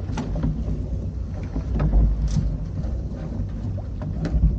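Wind rumbling on the microphone aboard a small boat, with water splashing against the hull and scattered knocks.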